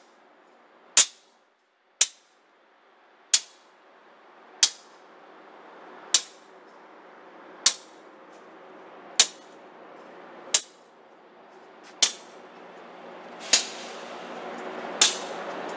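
Locomotive bell on a BNSF GE AC4400CW diesel clanging in even single strokes about every one and a half seconds, each strike ringing briefly. Underneath, the locomotive's diesel engine hums and grows steadily louder.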